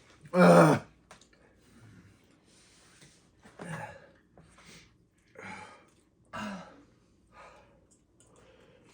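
Non-speech vocal sounds: one loud, short voiced exhale with a falling pitch about half a second in, then several quieter breaths and short vocal sounds.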